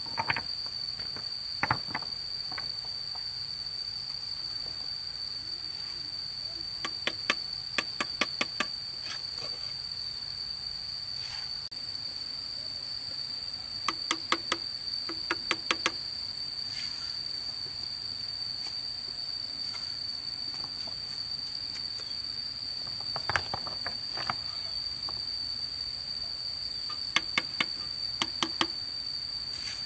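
A steady high-pitched insect drone runs throughout, with clusters of quick sharp taps several times, a few to each cluster, from a steel masonry trowel knocking and scraping on stones and cement mortar, plus a few duller knocks.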